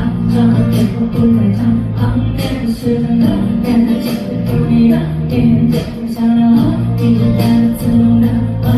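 Pop music with a steady beat: held bass notes under regular drum hits.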